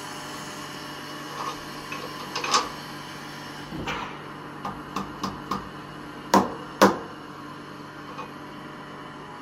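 Sharp metal knocks and clinks at a CNC mill's vises holding a steel plate: several light knocks, then two heavy ones about half a second apart past the middle, over a steady machine hum.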